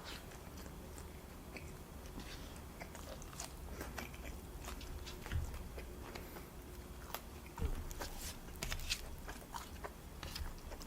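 Close-miked chewing while eating Indian food: scattered faint wet mouth clicks and smacks, with a couple of soft low thuds.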